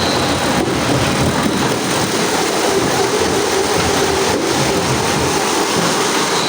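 Wood-processing machinery running: a loud, steady mechanical noise, with a high whine coming in near the end.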